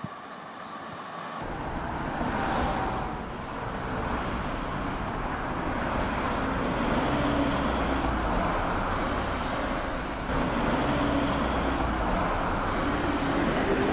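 Steady vehicle rumble, coming up about a second and a half in and holding.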